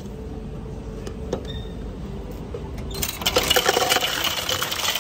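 Ice cubes clattering out of a drink fountain's ice dispenser into a paper cup, starting about three seconds in as the lever is pushed.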